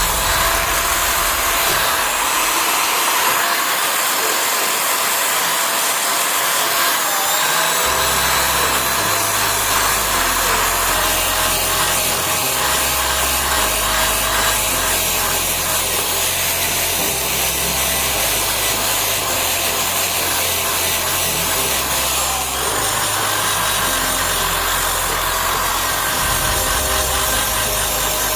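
An electric power tool running steadily under load, its pitch wavering slightly as it works the material. From about eight seconds in, background music with a stepping bass line plays under it.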